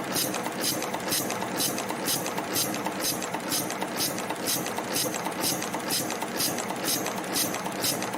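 CNC wire and strip stamping/forming machine running its cycle, a sharp stroke repeating about three times a second over steady machine noise.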